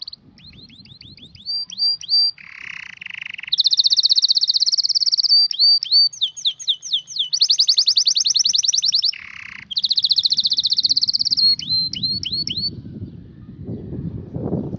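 Domestic canary singing: runs of repeated down-sweeping whistled notes alternating with long, fast trills and short buzzy phrases. The song stops a few seconds before the end and a low rumbling noise rises.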